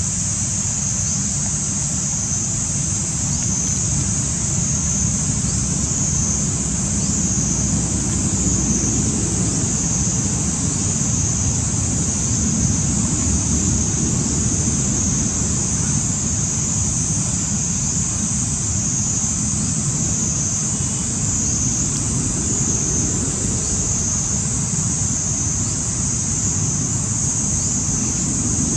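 Steady outdoor background noise: a low, fluctuating rumble with a continuous high-pitched drone above it.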